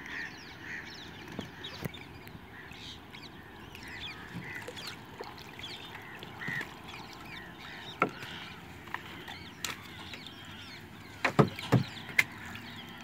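Many short bird calls over a quiet background, with a single knock about two-thirds of the way in and a quick run of sharp knocks near the end as the gill net is hauled in over the side of the canoe.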